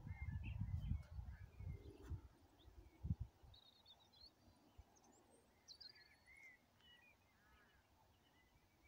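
Small songbirds chirping and trilling faintly. Low rumbling buffets on the microphone over the first three seconds, with one sharper thump near the end of them, then dying away.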